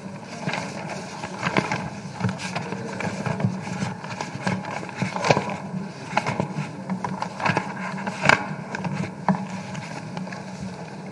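Papers rustling and being shuffled close to a microphone: irregular crackles and taps over a steady low hum.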